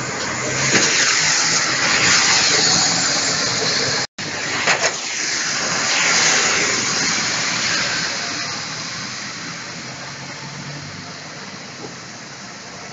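Traffic on a rain-soaked road: a steady, loud hiss of wet tyres with a low engine hum underneath. The hiss swells twice, and the sound cuts out for an instant about four seconds in.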